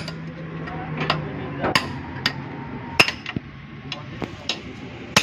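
Hammer striking metal: sharp, uneven blows roughly every half second, some with a short metallic ring.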